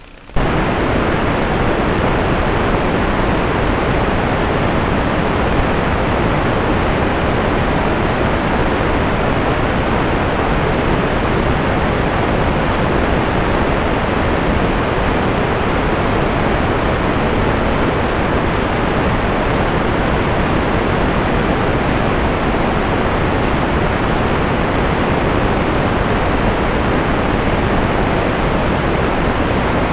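Loud, steady static hiss from an analog FPV video receiver once the drone's video signal is lost. It starts suddenly a fraction of a second in and holds unchanged.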